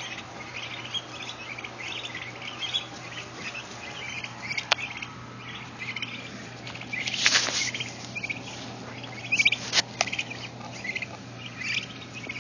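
A flock of three-week-old turkey poults peeping constantly, many short high calls overlapping, with a few sharp taps in between.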